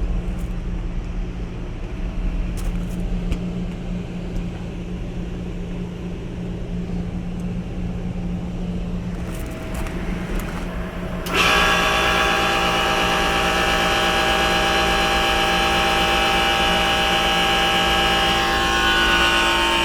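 Pool dehumidifier blower running with a low hum, then about eleven seconds in the Trane 3D scroll compressor starts with a sudden jump in level and runs loud and steady with a whining drone of several tones. It is noisy and worn, which the owner takes for something coming loose inside the compressor.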